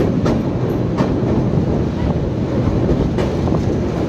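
Train running over a rail bridge, heard from aboard the moving train: a steady, loud, low rumble broken by a few sharp clacks of the wheels over the rail joints.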